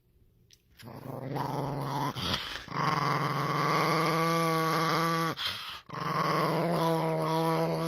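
A dog growling in two long, drawn-out stretches: the first builds up over a second or two and holds for several seconds, and after a brief pause the second starts about six seconds in.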